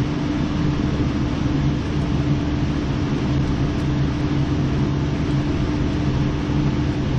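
A steady machine hum at a constant pitch over an even noise, unchanging throughout.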